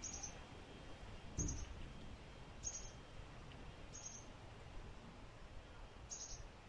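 A small bird repeating a short, high chirp about five times, roughly once every second and a half, faint against a low outdoor background hiss.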